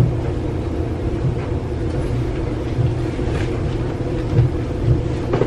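A steady low mechanical hum, with a few faint scrapes of a metal spoon digging chicken base out of a jar.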